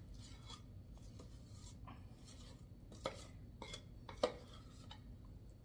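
Spatula scraping thick fudge out of a stainless steel pot, quiet scraping with two sharp clinks of the spatula against the pot, about three and four seconds in.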